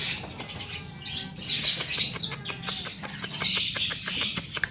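Javan myna (jalak kebo) giving harsh, rasping chatter, with a run of quick clicks in the middle and again near the end.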